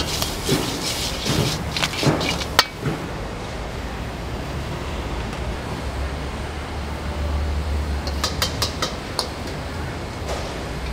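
Metal ladle clanking and scraping against a wok as stir-fried mantis shrimp are tossed, over the steady low rumble of a gas wok burner. Near the end a few more sharp scrapes come as the food is ladled out of the wok onto a plate.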